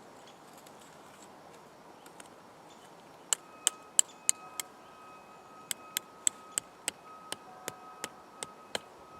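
Metal tent stakes being hammered into the ground: two runs of sharp strikes, about three a second, each leaving a brief metallic ring. The first run is five strikes; the second, after a short pause, is about ten.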